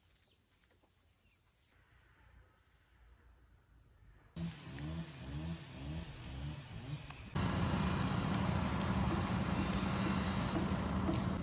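A motor vehicle's engine starts loud about four seconds in and revs up and down in short rises. From about seven seconds in it runs steadily and louder with a low hum. Before that there is only a faint steady high tone.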